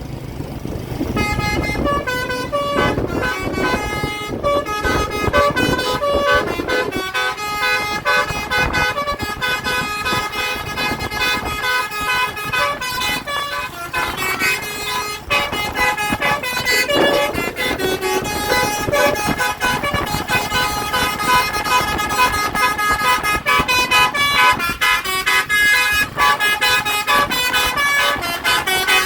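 A tour bus's telolet basuri horn, a multi-trumpet air horn, playing a quick tune of short, stepped notes over and over, starting about a second in, with vehicle noise underneath.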